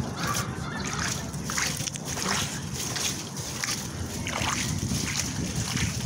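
Standing water splashing and sloshing as a rod is jabbed down into a clogged drain, a run of irregular splashes about one every half second or so.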